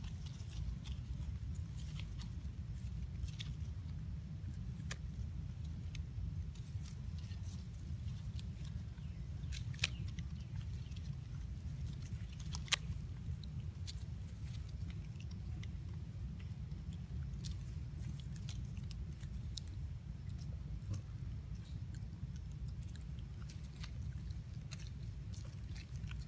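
Steady low outdoor rumble with scattered faint clicks and crackles; two sharper clicks stand out about ten and thirteen seconds in.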